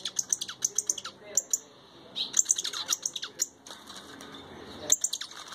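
Caged songbirds chirping in quick runs of sharp, high notes, each note falling in pitch. There are two runs in the first three and a half seconds and a short one near the end.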